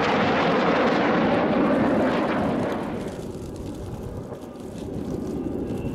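Aermacchi MB-339 jet trainers flying past, the noise of their single turbojets loud for the first two and a half seconds and then dropping away to a low rumble as they pull away.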